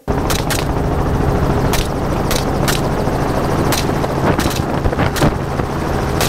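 Helicopter in flight with the door off, its rotor and engine making a steady drone with a low pulsing hum. About ten short, sharp cracks are scattered through it: rifle shots fired from the open door.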